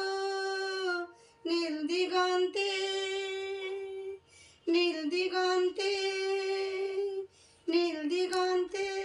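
A woman singing solo without accompaniment, in four phrases of long held notes with short breaths between them.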